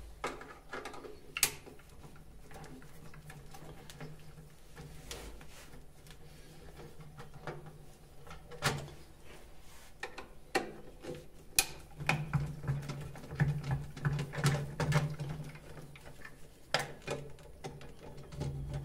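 Screwdriver working out the screws of a Geberit concealed cistern's plastic front mounting frame, with scattered clicks and knocks of the tool and the plastic frame being handled. A low hum comes up for a few seconds in the middle.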